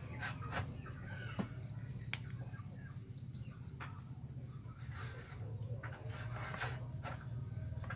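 Caged fighting crickets (jangkrik kalung, the two-spotted field cricket) chirping high and clear, about four or five chirps a second. One run lasts about four seconds, then comes a pause, then a shorter run near the end.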